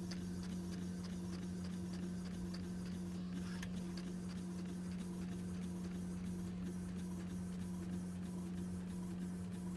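Home printer running as it prints a label on glossy paper: a steady hum with faint, regular ticking.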